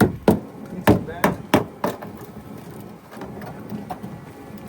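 A run of hammer blows, about three to four strikes a second, that slows and stops about two seconds in.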